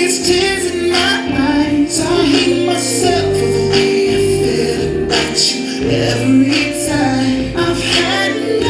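Music for a stage dance: a song with a woman singing held notes over a steady low accompaniment.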